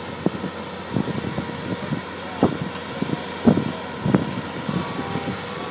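Machinery running steadily under irregular sharp knocks and clacks from paving work.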